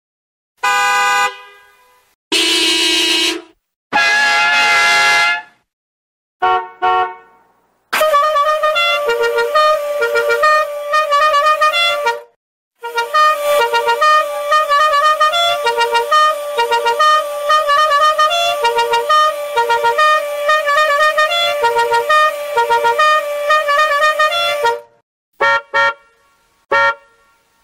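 A run of stock sound effects: three loud horn-like honks, each a second or so long, and a shorter fourth. Then a long repeating tune-like tonal pattern with an even beat, broken once by a short gap, and a few short clicks at the end.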